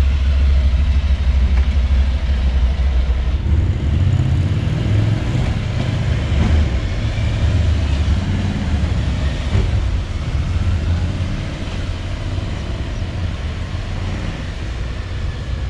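Motorcycle engines running with a deep low rumble, the note rising and falling a few seconds in, then slowly fading as the bikes move off.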